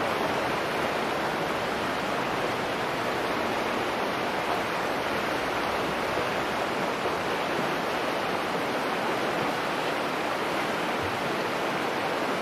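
Creek water rushing steadily over rocks in shallow riffles, an even, unbroken rush.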